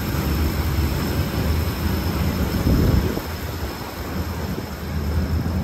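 DisneySea Electric Railway's two-car electric train running past on its elevated track, a steady low rumble of wheels and motors that eases off about three seconds in as it moves away.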